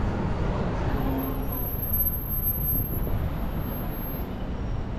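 Steady city street ambience: a low rumble of road traffic.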